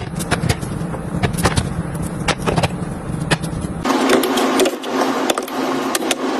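Close-up handling sounds: a string of sharp clicks and taps of objects being picked up and set down. The character of the sound changes abruptly about four seconds in.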